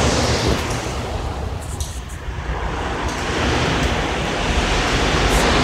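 R160 subway train running past the platform: a steady rushing rumble that dips slightly about two seconds in, then grows louder toward the end.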